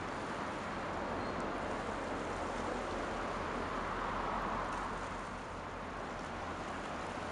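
Steady rushing outdoor noise of wind and water over a constant low hum, with no distinct events.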